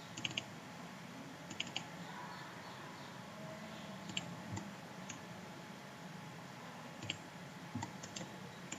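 Computer mouse clicking: about ten short sharp clicks at irregular intervals, some in quick pairs, over a faint steady hum.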